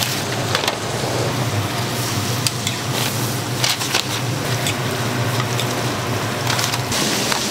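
Hotteok (sweet seed pancakes) frying in oil on a flat griddle: a steady sizzle with scattered sharp clicks, over a low steady hum.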